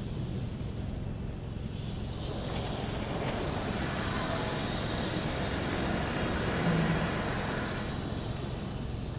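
Karcher Opti Wash 8000 automatic car wash spraying water over the car, heard from inside the cabin: a steady low rumble with a hiss of spray on the roof and rear glass that swells about two and a half seconds in and eases off near the end.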